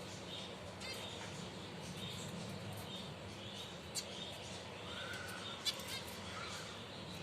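Finches chirping, with many short, high notes repeating throughout. Two short, sharp sounds stand out above the chirping, about four and five and a half seconds in.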